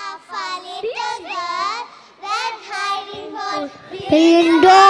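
Young children singing together into a microphone, ending on a long held note about four seconds in, the loudest part.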